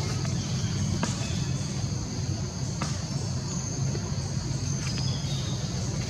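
Steady outdoor background: a constant low rumble with a steady high-pitched drone above it and a few faint clicks.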